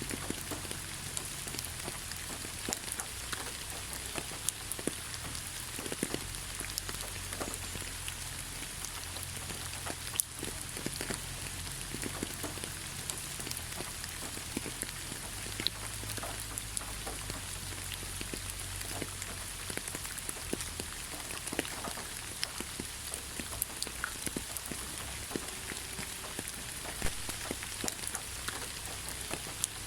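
Steady rain falling on leaves: an even hiss dotted with many separate drops ticking and pattering, over a faint low rumble.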